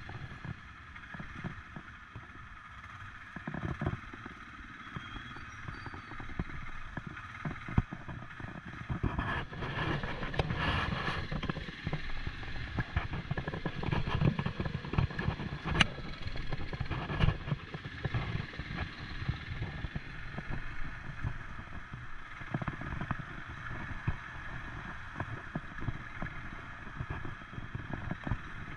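ATV (quad bike) engine running while riding over a rough unpaved road, with low rumble and rattles and knocks from the bumps.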